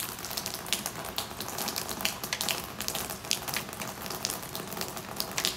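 Rain falling steadily on a wet wooden deck: a constant hiss dotted with many scattered, sharp drop ticks.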